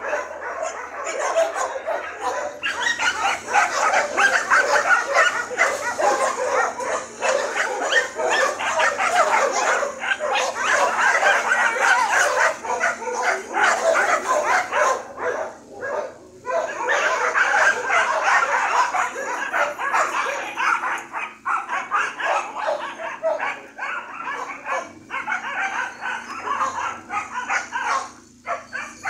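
Dog yipping and barking excitedly, almost nonstop in rapid calls, with brief pauses about halfway through and again a little later; a leashed dog worked up at the sight of cats.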